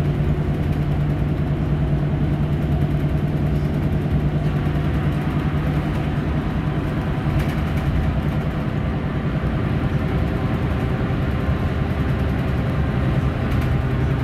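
Mercedes-Benz Citaro facelift (O530) city bus under way, heard from inside the passenger cabin: a steady engine drone with road and tyre noise. The engine note steps lower near the end.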